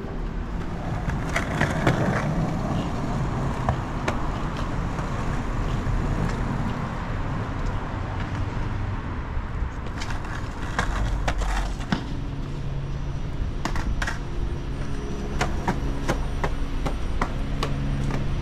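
Street noise with scattered clicks and rattles; about twelve seconds in a steady low vehicle hum with a few held tones joins in.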